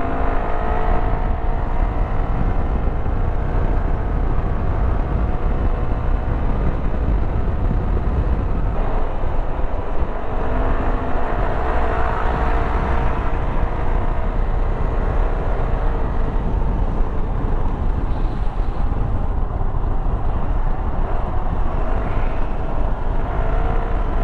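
Venture ADV adventure motorcycle's engine running under way on the road, its pitch drifting down and then rising again as the throttle changes, over heavy wind noise on the microphone.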